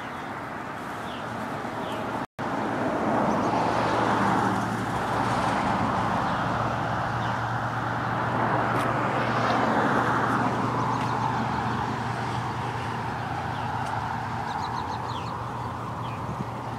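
A passing vehicle's noise swells and fades over several seconds above a steady low engine hum. A few faint bird chirps come near the end.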